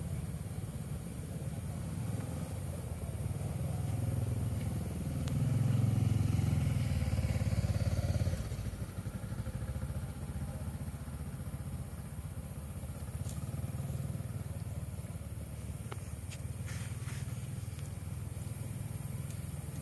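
Low rumble of motor traffic nearby. An engine grows louder from about four seconds in, then falls away suddenly a little before the ninth second, leaving the steady rumble.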